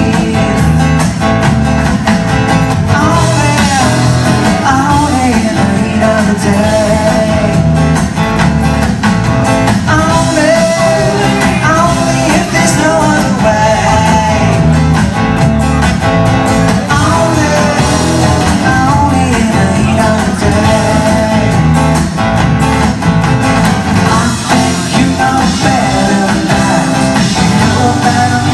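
A live rock band playing a song, loud and steady: drums, keyboard and guitar, with a singing voice.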